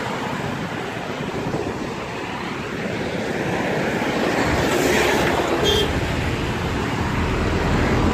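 Road traffic noise with wind rushing on the microphone, and a brief high tone about two thirds of the way through.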